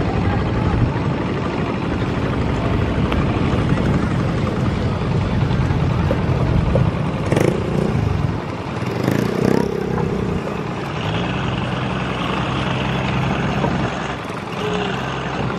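Steady low engine rumble whose pitch wavers about nine to ten seconds in, with a short click about seven seconds in.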